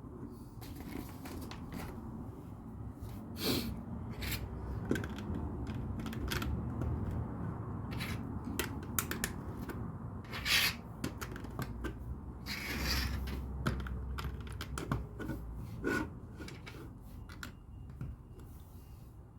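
Plastic LEGO bricks clicking and rattling as they are handled and pressed together, a scatter of short sharp clicks at irregular intervals, over a low rumble underneath.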